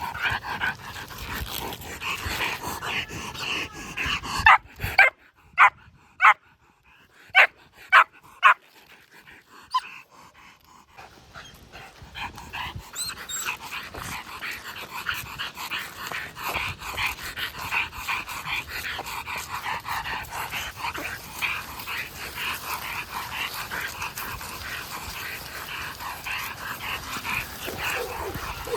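Czech Shepherd dog whining in high-pitched yips. A bit over four seconds in, it barks sharply about six times. Then it goes back to steady, rapid whining and yipping.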